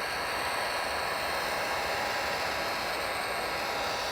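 Electric heat gun running steadily, its fan blowing a constant hiss, passed over freshly poured epoxy resin to pop the air bubbles.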